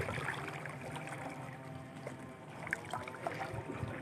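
Kayak paddle dipping and pulling through calm water, with drips and scattered small knocks.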